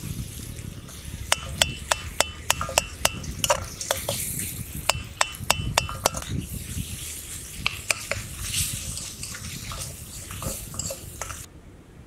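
A metal utensil stirring food in a metal cooking pan, striking the pan in two quick runs of ringing clinks, over a frying sizzle. The sizzle and stirring stop abruptly near the end.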